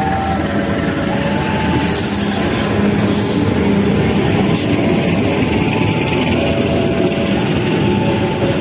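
A CC 203 diesel-electric locomotive and its passenger coaches rolling slowly past at close range, with a steady rumble of engine and wheels. A level-crossing warning chime repeats a stepped electronic tone over it. A brief high wheel squeal comes about two seconds in, and a sharp clank about four seconds in.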